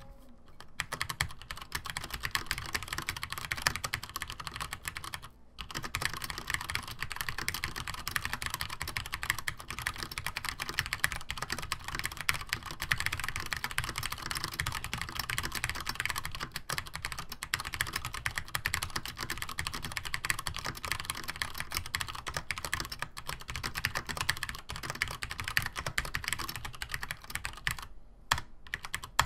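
Rapid typing on a Compaq-branded Cherry G80-1838HPU keyboard with vintage PCB-mounted Cherry MX Brown tactile switches and Cherry doubleshot keycaps: a dense run of key clicks, with a brief pause about five seconds in and another near the end.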